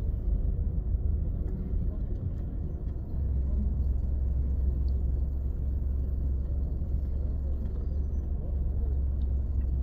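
Steady low rumble of outdoor street background noise, which gets a little louder about three seconds in.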